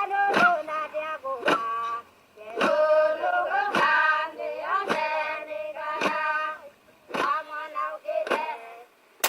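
Recorded singing with a steady beat about once a second, played back by a UHER 4000 IC reel-to-reel tape recorder whose drive belt has just been put back on its proper path; the playback stops shortly before the end.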